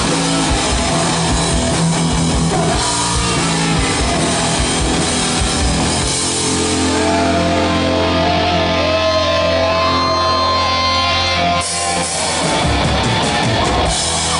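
Live hard rock band playing: distorted electric guitars and drum kit together. From about six seconds in, a long low chord is held while wavering lead guitar notes ring above it, with a brief break near the end.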